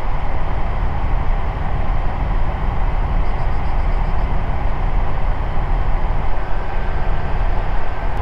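Steady drone of an Ikarus C42B microlight's engine and propeller in cruise flight, heard from inside the cockpit.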